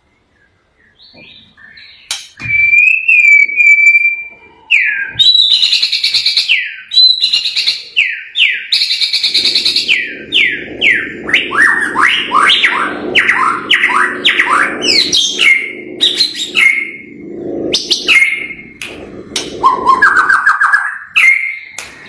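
White-rumped shama singing a long, varied run of loud, clear whistles that begins about two seconds in. In the middle come rapid runs of quick sweeping notes, and near the end a fast rising series.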